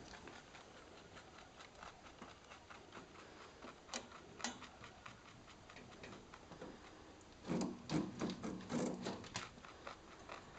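Lop-eared rabbit crunching a carrot: rapid, irregular small crunching clicks, louder for a couple of seconds about three-quarters of the way in.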